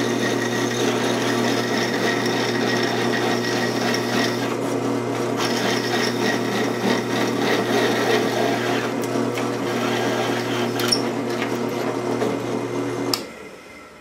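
Drill press running as a twist bit cuts dry through a metal plate in a vise, throwing curly chips; a steady machine hum with a scraping, hissing cutting noise. The sound drops away about a second before the end.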